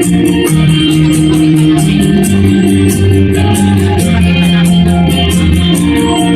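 Instrumental music with a steady beat: held chords over a bass line and a regular ticking rhythm.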